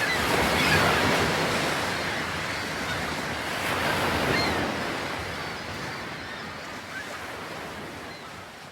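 Sea waves breaking and washing onto a beach: a steady rushing surf that slowly fades away toward the end.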